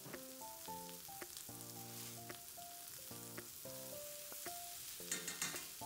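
Onion, tomato and capsicum pieces sautéing in oil in a non-stick wok on high flame: a faint, steady sizzle, with a spatula stirring them later on. Soft background music plays a slow, simple melody over it.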